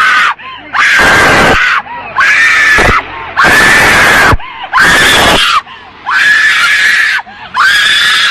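An elderly woman screaming over and over in long, high, siren-like shrieks, each about a second long with short breaks between, about six in a row.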